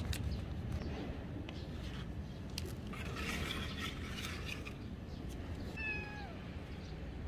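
A young kitten meowing once, a short cry that falls in pitch about six seconds in, with a brief rustle a few seconds before it.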